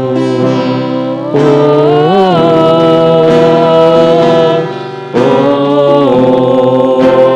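A man singing a worship song in long held notes into a microphone, accompanied by a strummed acoustic guitar.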